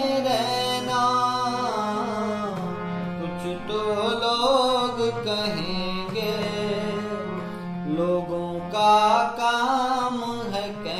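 A man singing a Hindi film-song melody in long, sliding vocal lines, accompanying himself on a harmonium whose reed chords sustain steadily underneath.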